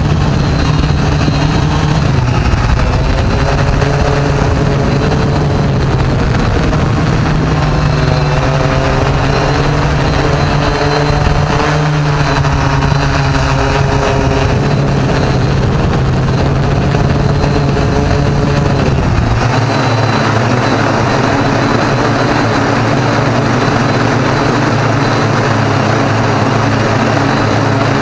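Drone motors and propellers running loud and close, heard from the drone's own camera, a steady whine that shifts in pitch several times as the drone manoeuvres. About twenty seconds in, the sound changes suddenly and the deep rumble underneath drops out.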